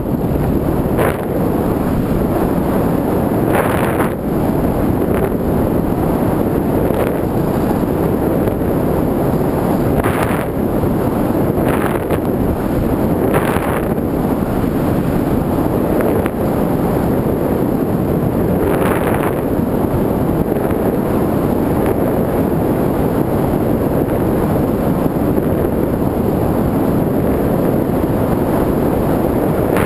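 Airflow rushing over the microphone of a camera mounted on a flying RC model plane: a loud, steady roar of wind buffeting, with brief hissier gusts every few seconds.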